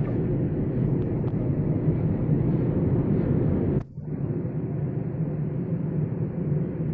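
Breakfast cereal extrusion line machinery running with a steady low mechanical noise, broken by a short gap about four seconds in.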